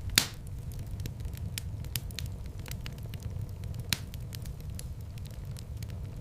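Wood fire in a fireplace burning with a steady low rumble and scattered crackles. A loud pop comes just after the start and another about four seconds in.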